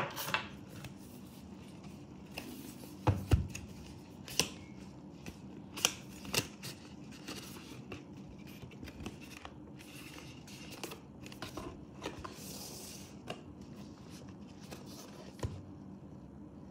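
Cardboard Apple Watch box being handled and opened: scattered taps and knocks of the box and lid against the desk, the loudest a dull thump about three seconds in, with the papery scrape of the inner sleeve sliding out around two-thirds of the way through.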